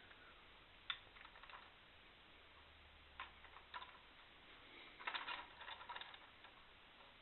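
Faint, scattered small clicks and taps, as when a scale model car is handled, with a quick cluster of clicks about five seconds in.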